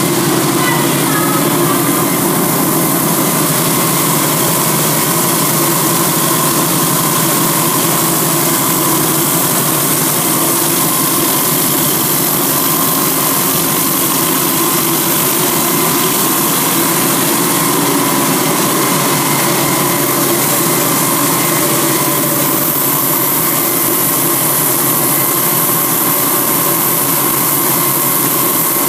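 CNC diamond wire saw running steadily as its wire cuts through a granite block under a stream of cooling water: an even machine drone with a few steady tones in it.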